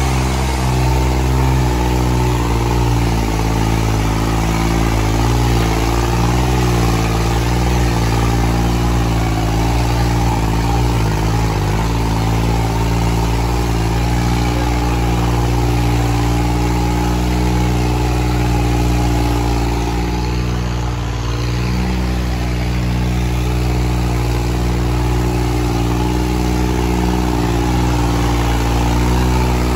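New Holland 3630 tractor's diesel engine running hard under heavy load, its pitch wavering for the first dozen seconds and then holding steady.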